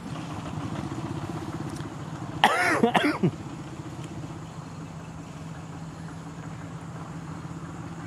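Dump truck's diesel engine running steadily at idle. About two and a half seconds in comes the loudest sound: a brief, loud call in two rising-and-falling cries, lasting under a second.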